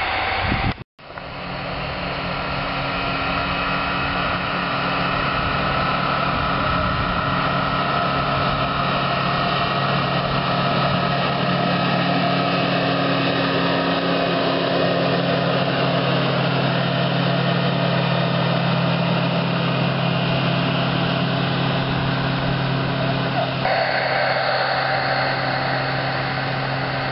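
The engine of a self-propelled on-track railway maintenance machine, running steadily with a constant hum as the machine travels slowly along the rails. The sound shifts near the end as the machine moves away.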